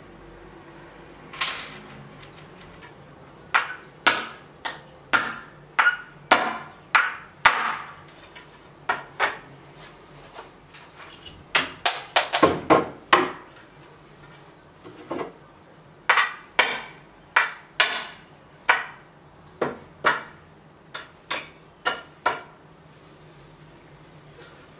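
Claw hammer striking iron nails in a wooden board to knock them out: a long run of sharp, irregular blows, with a quick flurry near the middle.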